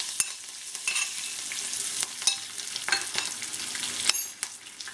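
Mustard seeds, cumin, sesame seeds and curry leaves crackling and sizzling in hot oil in a kadhai as a tempering (tadka), a steady crackle scattered with small pops and a few sharper clicks.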